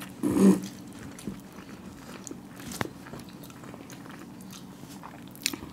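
Close-up chewing and biting of hard-boiled eggs coated in spicy masala, with a short louder burst just after the start and a few sharp clicks, the strongest near the end.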